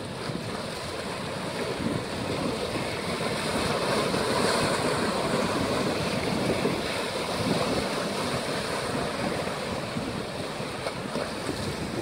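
Small sea waves washing and breaking over a rocky shore, with wind on the microphone. The wash swells louder about four seconds in.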